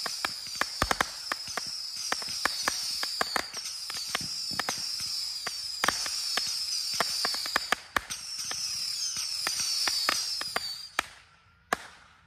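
Quick-fused firework rack of whistling deadheads and rainbow pixel shots firing in rapid succession: overlapping high whistles, each falling slightly in pitch, over a dense run of sharp pops and cracks. The barrage stops about eleven seconds in, with one last pop shortly after.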